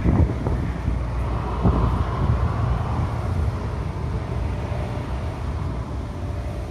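Wind buffeting the microphone: a low, gusty rumble that peaks near the start and again under two seconds in.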